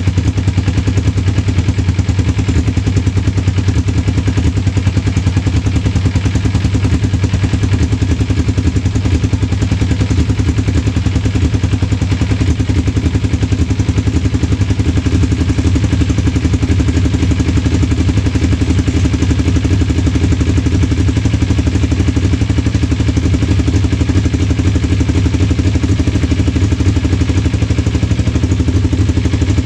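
First-generation Kawasaki Ninja 250's parallel-twin four-stroke engine idling steadily.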